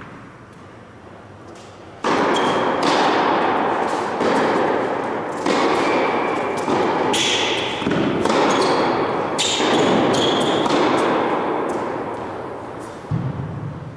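Tennis balls struck and bouncing in a large indoor tennis hall, a series of sharp hits each trailing a long echo, beginning about two seconds in and dying away near the end, with a single thud shortly before the end.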